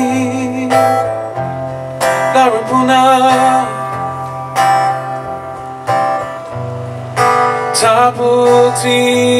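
Acoustic guitar strummed in slow, ringing chords, with a man singing at times in palawa kani, the revived Tasmanian Aboriginal language.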